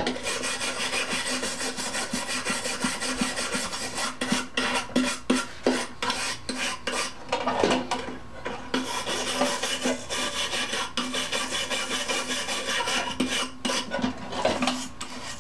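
Small toothbrush-style brass wire brush scrubbing a rusty kerosene lantern in quick, scratchy back-and-forth strokes, with a brief let-up about eight seconds in. The brush is lifting rust that a molasses bath has loosened.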